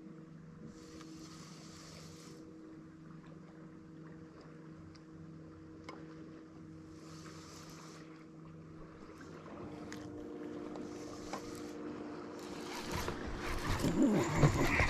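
Electric trolling motor humming steadily on a bass boat, its tone shifting about two-thirds of the way through, with short spells of baitcasting reel cranking. In the last couple of seconds a louder, irregular commotion of water and handling as a bass is brought in.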